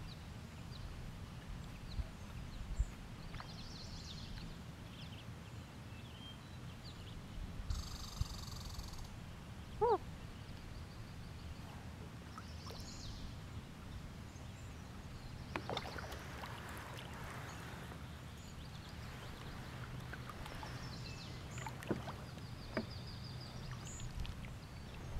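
Calm lake ambience heard from a kayak: a steady low rumble with a few faint high chirps and scattered light knocks and taps from the boat.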